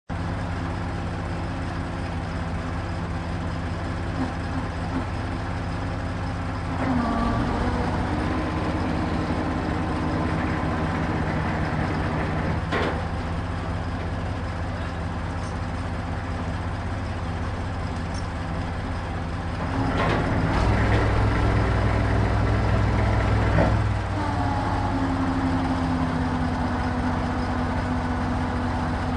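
Truck crane's engine running steadily, rising under load twice as the crane works, with a few sharp clanks of chain and concrete blocks.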